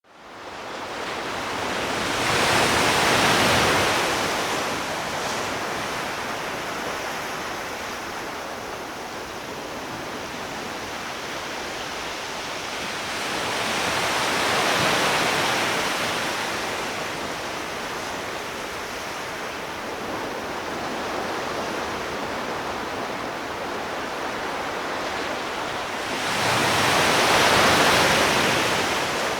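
Sea waves washing onto a shore: a steady wash of surf that swells three times, about every twelve seconds.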